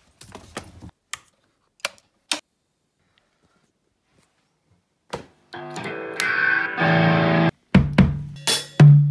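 A few sharp knocks and clicks, then a pause. About five and a half seconds in, a distorted electric guitar chord rings for two seconds and cuts off. Near the end, loud drum hits on the kick and snare start.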